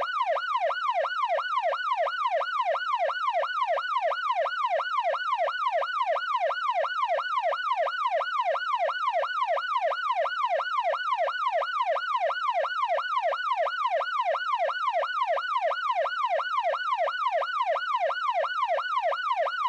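Police siren in its fast yelp pattern: one tone rising and falling rapidly, a few times a second, repeating without a break.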